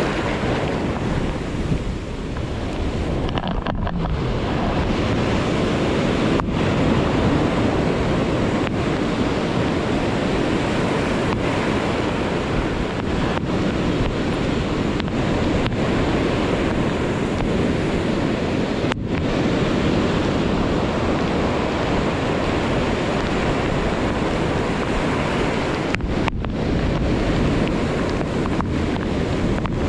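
Heavy surf breaking on a rocky shore, a steady rush of sea noise from a stormy swell, with wind buffeting the microphone. The sound cuts out briefly a few times.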